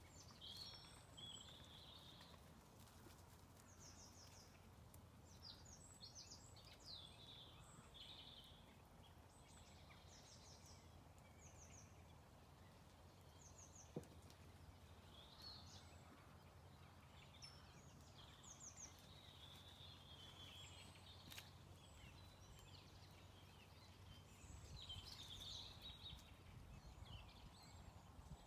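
Faint birdsong from small songbirds: scattered short chirps and brief trills throughout, busier near the end, over a low steady rumble of background noise. A single sharp click about halfway through.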